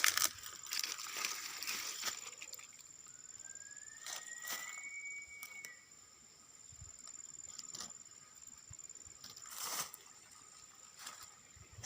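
Night insect chorus with a steady, thin, high-pitched drone. About three seconds in, a faint whistle-like call rises in pitch and then holds for a couple of seconds. A few short rustles or knocks come and go.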